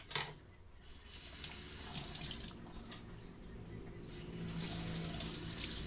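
Kitchen tap water running and splashing into a sink as a peeled turnip is rinsed under it, the splashing rising and falling unevenly as it is moved in the stream. A sharp knock comes right at the start.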